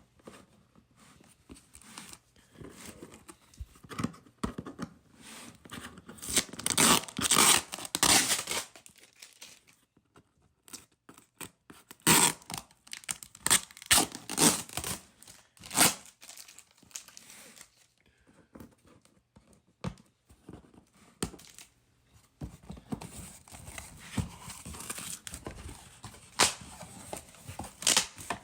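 Cardboard box and plastic packaging being torn open and crinkled by hand, in irregular bursts of rustling with several sharp clicks and knocks in the middle.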